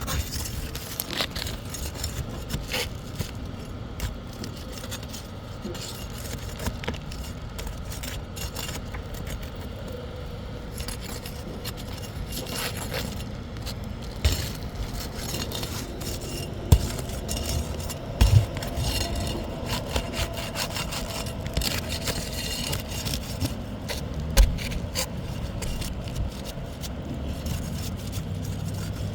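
A hand tool scraping and prying under 3-tab asphalt roof shingles, working them loose and at their nails, with a few sharp knocks in the second half.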